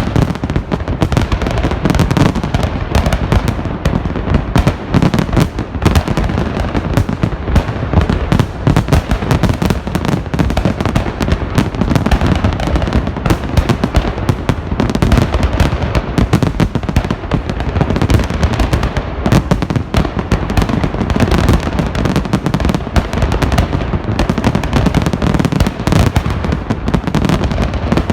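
Festive fireworks salute: a dense, unbroken barrage of bangs and crackles from shells bursting overhead.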